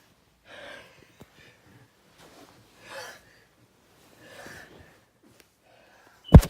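A person with hay fever taking short gasping breaths in, three of them a second or two apart, then a sudden, very loud sneeze near the end.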